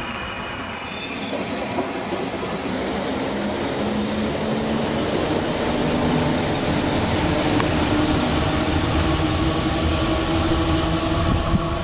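Electric locomotive-hauled train rolling slowly over the rails and growing louder as it approaches, with a steady whine through the second half.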